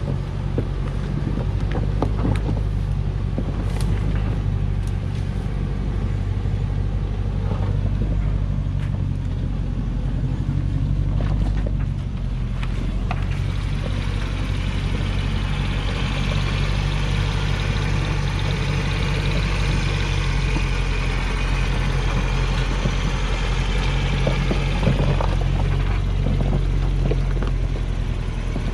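Diesel engine of a heavily loaded Hoa Mai log truck running with a steady low drone as the truck works down a steep, muddy hillside track. A few knocks come early on and around the middle, and a steady hiss joins in from about halfway until near the end.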